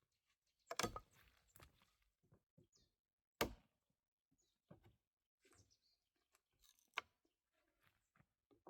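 Hand tool knocking into a wooden log as it is being hollowed out: three sharp knocks a few seconds apart, with fainter scrapes and taps between.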